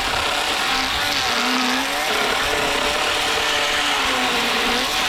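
Worx WG384.9 cordless chainsaw with an 18-inch Oregon bar cutting through a pine trunk. Its motor whine wavers, dropping in pitch as the chain loads up in the wood.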